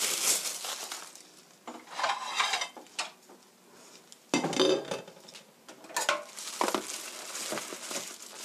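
A disposable plastic glove crinkles at the start. Then come several separate clinks and knocks of a china plate and a knife being handled in a stainless steel kitchen sink, the loudest about four and a half seconds in.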